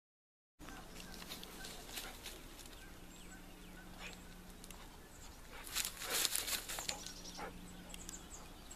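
Outdoor ambience that starts about half a second in: rustling and crunching of footsteps through dry grass and brush, loudest in a cluster about six seconds in, with faint bird chirps and a low steady hum that comes and goes.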